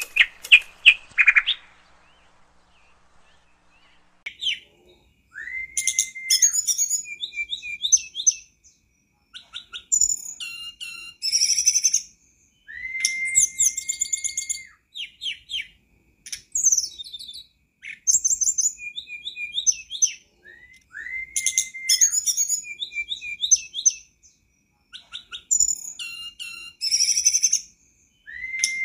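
Hill blue flycatcher (tledekan gunung) singing in bursts a few seconds apart, starting about four seconds in. Each burst is a rapid run of high, slurred twittering notes, several of them with a long, even whistle. A brief intro sound effect plays at the very start.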